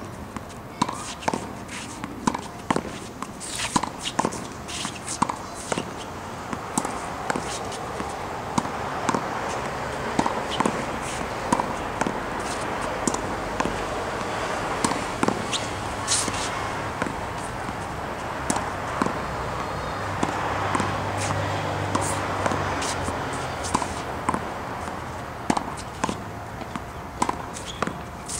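Tennis ball hit against a practice wall again and again: sharp pops of the racket strikes, the ball smacking the wall and bouncing on the hard court, about one to two a second, with fewer hits through the middle. A steady background rush lies under it, louder in the middle.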